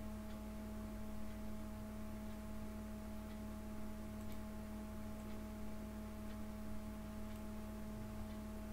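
A steady electrical hum made of a low tone and a few fainter higher tones over hiss, with faint scattered ticks.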